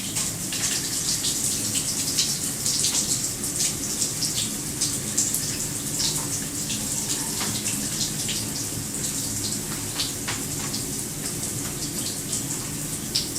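Shower running: a steady hiss of spray with frequent irregular splashes.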